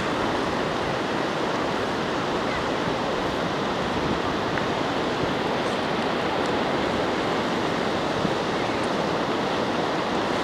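Steady, even rushing of wind and surf on an open beach.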